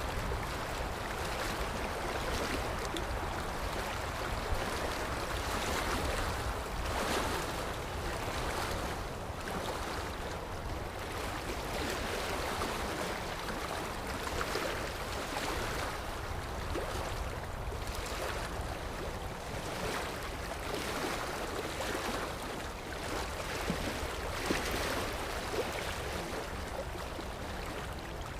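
Sea surf: a steady wash of waves, swelling and easing every two seconds or so.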